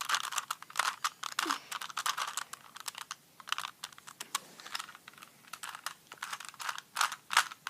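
Plastic Rubik's Cube being twisted by hand: a fast, irregular run of clicking and clacking as its layers turn.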